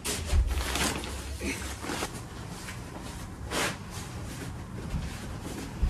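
Fabric rustling and rubbing as a ground cloth, sleeping pad and sleeping bag are folded over and rolled into a bedroll, with a dull thump about half a second in.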